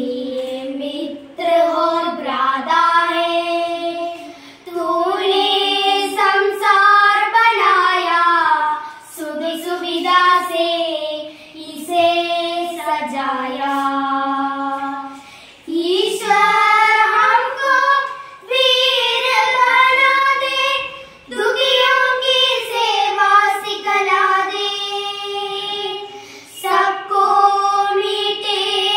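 Three children singing a Hindi song together into a microphone, unaccompanied, in sung phrases of a few seconds with short breaths between them.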